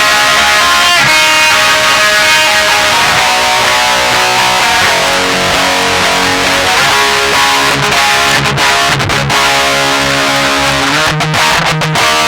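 Electric guitar played through a distortion pedal, with an EQ pedal set to maximum mids and treble ahead of the distortion, playing sustained chords. There are a few quick stops between chords in the second half.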